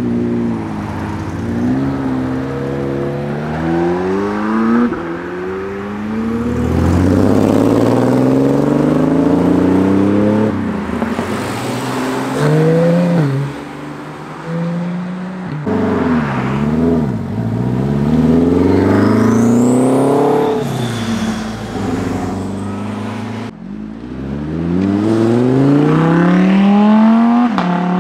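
Several cars accelerating hard one after another, each engine rising in pitch and dropping back at every gear change before climbing again. The last run near the end is the loudest.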